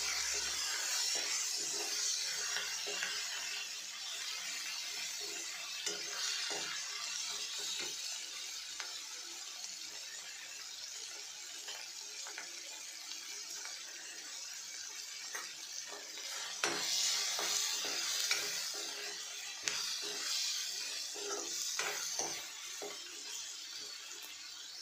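Chopped onion, tomato and dried red chillies sizzling in hot oil in a kadhai as the masala base is sautéed, stirred with a spoon that scrapes and taps against the pan. The taps come more often in the last several seconds.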